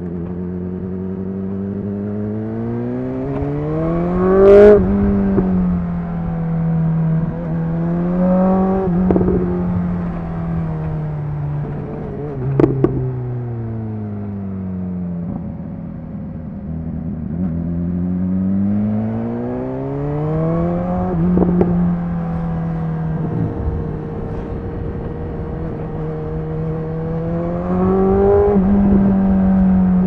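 BMW S 1000 XR's inline-four engine through a Cobra slip-on exhaust with the dB killer removed, being ridden: the revs climb and fall several times, with a long easing-off in the middle. A sharp crack comes at the first rev peak, about five seconds in, and another as the revs start to fall.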